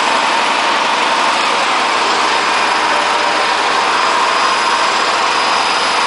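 Hotpoint Aquarius WF540 washing machine on a 1400 rpm spin, making a loud, steady noise with a constant whine in it: the drum bearings are broken.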